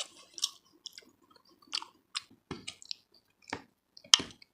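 Close-up chewing of chicken lasagna: soft, wet mouth clicks and smacks at an irregular pace, with one sharper smack about four seconds in.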